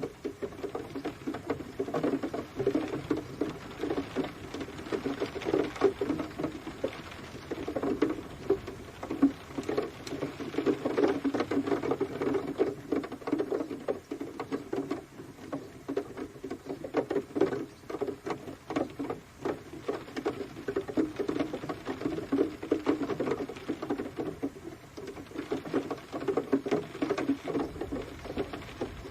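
Rain pattering: a dense, irregular stream of drops ticking on a surface, swelling and easing every few seconds.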